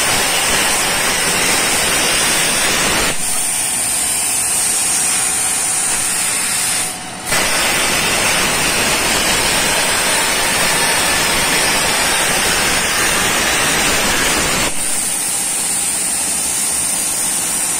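CNC plasma torch cutting sheet steel: a loud, steady hiss of arc and air. It thins about 3 seconds in, dips briefly near 7 seconds, comes back full, and thins again about 15 seconds in once the arc is off.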